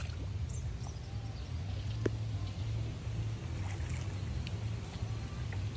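A paddled canoe moving on a river: water swishing and lapping against the boat over a low, steady rumble, with a single light knock about two seconds in.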